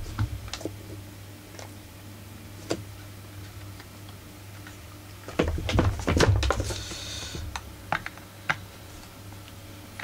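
Scattered light clicks and knocks of hand tools and small metal chainsaw parts being handled on a workbench, with a cluster of knocks a little past the middle and a short rustle right after it, over a steady low hum.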